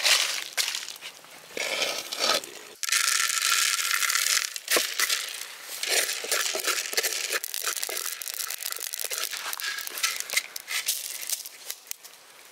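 Dry crunching and crackling handling sounds in irregular bursts with many sharp clicks, busiest in the middle and thinning out near the end.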